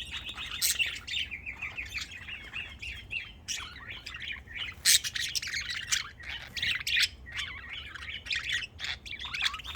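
Pet budgerigars chattering and warbling continuously, a dense stream of quick chirps with sharper squawky calls mixed in.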